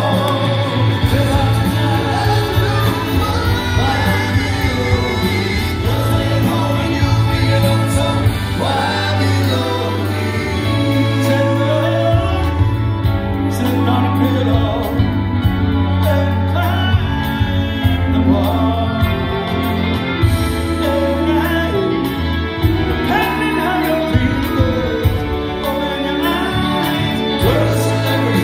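Live rock band performing: a man sings lead into a microphone over keyboards and a bass line of long held notes that change every few seconds.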